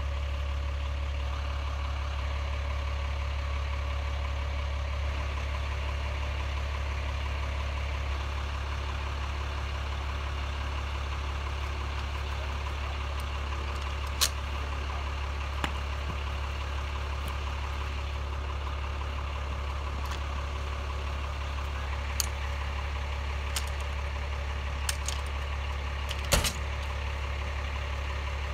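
Truck engine idling steadily with a constant low rumble. From about halfway through come a handful of short, sharp metallic clicks from tools at the transformer; the loudest is near the end.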